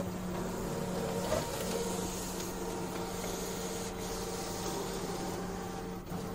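HP PageWide Managed Color MFP E77650 printer running, a steady mechanical hum with a brief dip about a second and a half in and again near the end.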